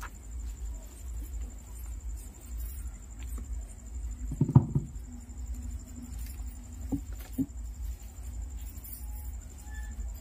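Rustling and small clicks of book pages and hands handling a live wired microphone, over a steady low hum from the sound system, with one louder low thump about four and a half seconds in.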